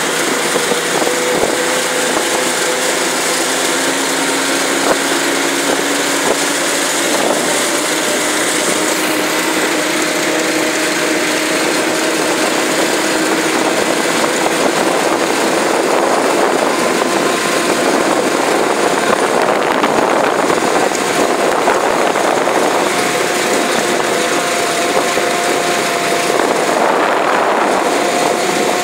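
UTV engine running steadily while the machine drives across a muddy field, with faint engine tones drifting slightly in pitch as its speed varies.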